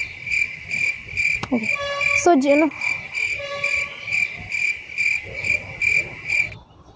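Cricket chirping loudly and close, a high pulsed trill at about two to three chirps a second, stopping suddenly near the end. Two short wavering pitched calls break in about one and a half and two and a half seconds in.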